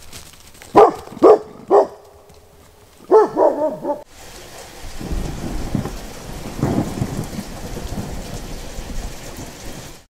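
A Belgian Malinois barks three times in quick succession, then a few more times. After an abrupt change, thunder rumbles over steady rain, swelling about two-thirds of the way through.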